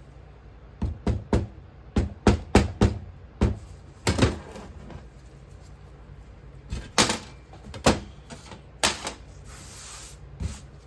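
Irregular sharp knocks and clacks of hard objects, a casting flask and tools, being handled and set down on a table while working a sand mold, with a brief hiss about nine seconds in.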